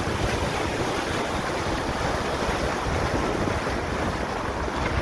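Land Rover Discovery's tyres churning through a water-filled muddy rut: a steady rush of sloshing water and mud, heard from inside the cab.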